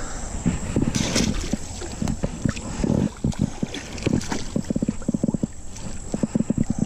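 Water splashing and sloshing in many short, irregular slaps as a channel catfish is released back into the water.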